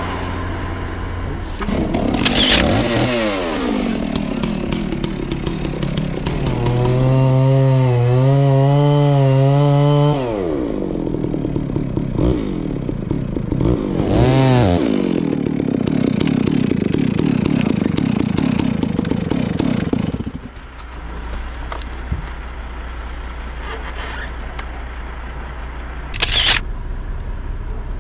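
Chainsaw revving up and down in pitch, then running steadily under load in the trunk for about five seconds before dropping off about twenty seconds in. A low steady engine hum runs underneath, and there is one sharp knock near the end.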